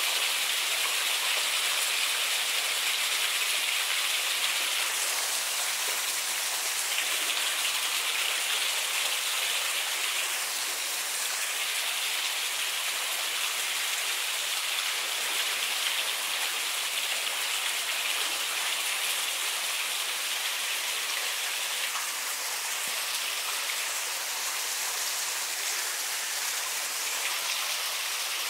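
Small artificial waterfall pouring onto rocks: a steady rushing splash of water that thins briefly a few times.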